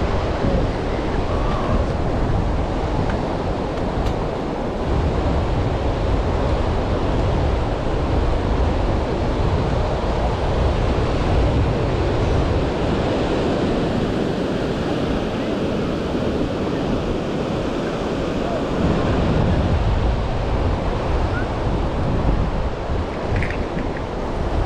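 Ocean surf washing onto a beach, a steady rushing noise, with wind buffeting the microphone and adding a low rumble.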